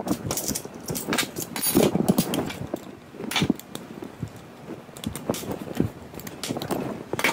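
Irregular metallic clicks, knocks and rattles from an FAL rifle being handled and taken apart by hand.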